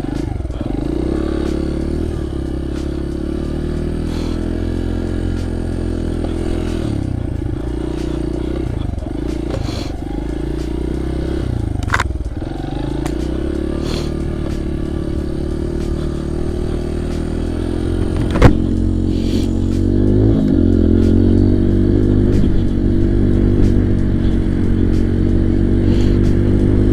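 Small single-cylinder four-stroke dirt bike engine (Honda CRF100F) running while riding, its pitch rising and falling with the throttle. Two sharp knocks cut through it, the louder about two-thirds of the way in, after which the engine runs louder and steadier.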